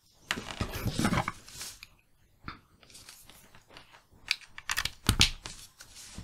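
Handling noise from a digital audio player and a Chord Hugo 2 DAC being picked up and moved against each other: a noisy stretch of about a second and a half, then a few separate clicks and knocks as a headphone plug is pushed into the Hugo 2's socket, the loudest about five seconds in.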